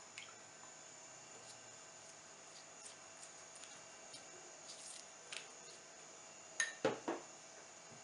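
Faint scattered taps of a silicone pastry brush dabbing egg wash onto puff pastry on a parchment-lined baking tray. Near the end come three or four sharp knocks and clinks of kitchenware being handled.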